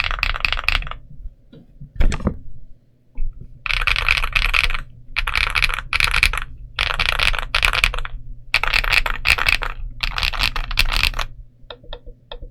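Typing on a Monsgeek M1V5 aluminium 75% mechanical keyboard: about five runs of rapid key clacks, each about a second long, with short pauses between. There is one louder single knock about two seconds in, and a few slower keystrokes near the end.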